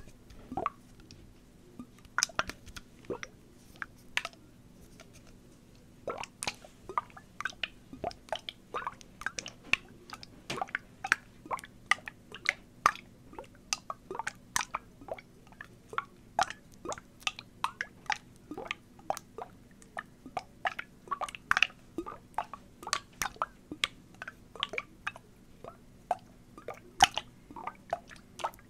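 Plastic water bottle handled close to the microphone: irregular sharp crackles and clicks, several a second, with a brief lull about five seconds in.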